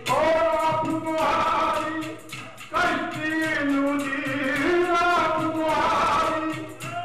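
A group of men singing a Punjabi folk song in chorus. They hold long notes in two phrases, with a short break nearly three seconds in.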